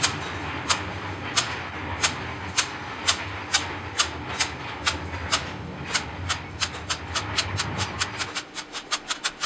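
Pick-and-place machine feeder locking latches being flipped open by hand one after another, each giving a sharp click. The clicks come about every two-thirds of a second and quicken near the end, over a steady machine hum.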